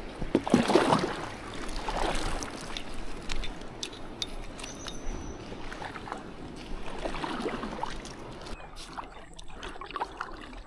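Double-bladed kayak paddle strokes: the blades dipping and pulling through the water with a splashy swish every second or two, loudest near the start, with small knocks and drips between strokes.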